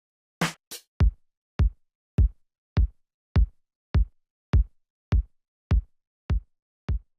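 Electronic drum-machine kick drum, hit steadily about every 0.6 s, each hit a deep thump with a click on top that cuts off sharply into dead silence, as a noise gate on the SPL channel strip closes between hits. A single brighter crack comes about half a second in, before the run of kicks.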